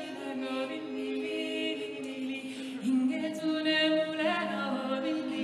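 A cappella choir singing long held chords, moving to a new chord about three seconds in and again near the end.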